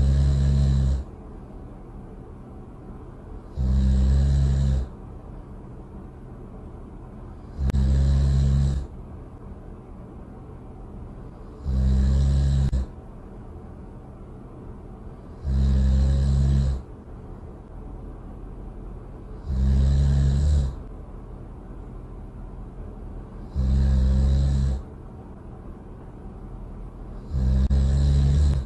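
Loud snoring: the same harsh, buzzing snore about a second long, repeated at even intervals about every four seconds, eight times. A steady low hum runs between the snores.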